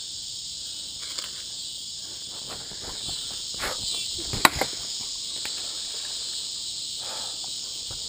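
Cicada buzzing loudly and steadily, a continuous high drone, with one sharp click about halfway through.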